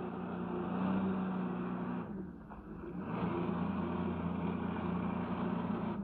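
Jet ski engine running steadily, the personal watercraft that drives the flyboard's water jet, with water wash. It drops away briefly about two seconds in, then picks up again.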